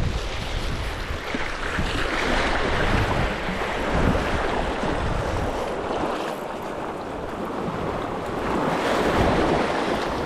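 Small waves washing onto the shore, rising and falling in loudness, with wind buffeting the microphone.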